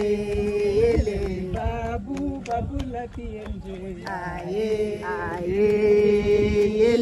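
A group of women singing a traditional wedding song in unison, holding long notes.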